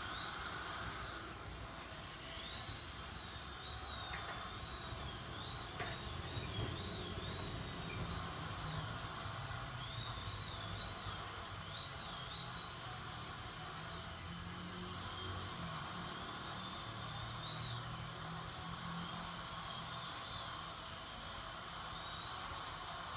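Dental drill's high-pitched whine, its pitch wavering and dipping over and over and breaking off briefly a few times, over a steady hiss.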